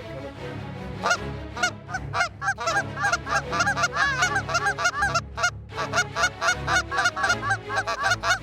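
A flock of Canada geese honking, many short calls overlapping and growing dense from about a second in as the birds come in low over the decoys.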